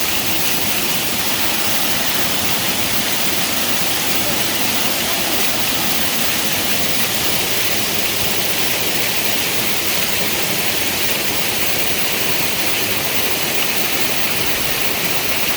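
Waterfall rushing: a steady, loud, unbroken hiss of falling water.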